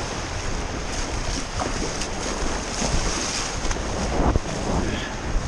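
Wind buffeting the microphone over small surf washing and foaming around a kayak in shallow water, with a couple of light knocks.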